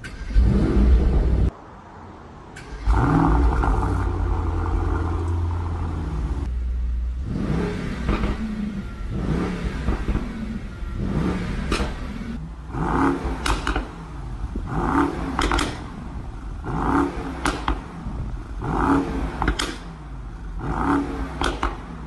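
Mercedes-AMG GT 63 S 4-door's twin-turbo V8 starting up with a loud flare. It settles into a low rumbling idle, then is revved in short blips about every two seconds in the second half.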